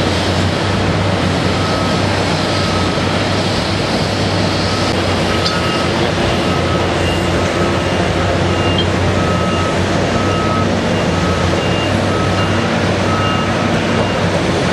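Caterpillar 320D L excavator's six-cylinder diesel engine running steadily as the machine works, with a backup alarm beeping at an even pace, a little faster than once a second.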